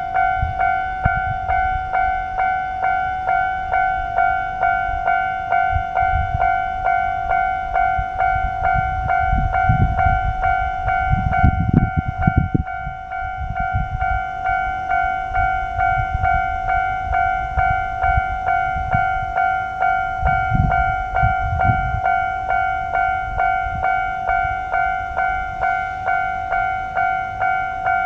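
Japanese railway level crossing's electronic warning bell ringing steadily, about one and a half strikes a second. Low rumbling swells under it about a third of the way in and again about three-quarters through.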